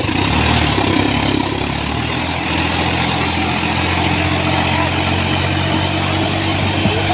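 Swaraj 855 tractor's three-cylinder diesel engine running steadily under load as the tractor works a tilled field, with an even low hum.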